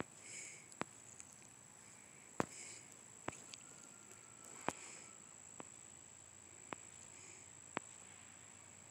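Quiet background with a steady high-pitched whine and sharp, irregular clicks about once a second.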